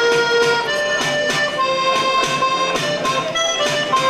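Accordion playing a traditional tune between sung verses: sustained chords under a melody that steps from note to note, over a steady percussive beat.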